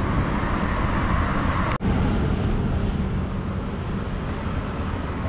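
Steady road traffic noise from the highway beside the stall, with no single vehicle standing out. The sound drops out for an instant about two seconds in.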